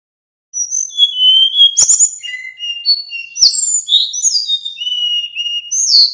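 Male sikatan bambu (hill blue flycatcher) singing a fast, varied run of clear whistled notes, many sliding up or down in pitch. It starts about half a second in and stops abruptly at the very end, with a few sharp clicks near the second and third-and-a-half second.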